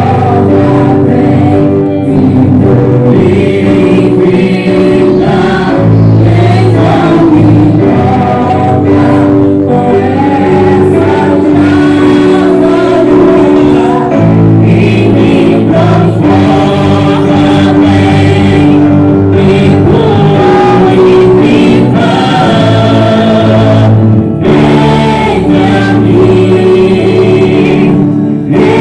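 Church worship team singing a Christian gospel praise song in chorus with musical accompaniment, loud and continuous.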